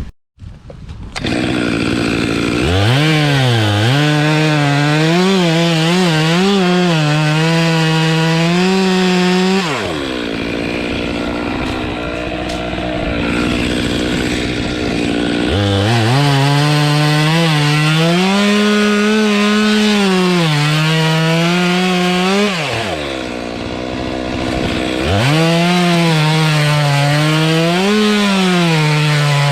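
Stihl chainsaw revving up and cutting through the tree's trunk for the back cut of a hinge cut. Its pitch wavers and sags as the chain loads in the wood, and it drops back to lower revs twice, about 10 and 23 seconds in, before climbing again.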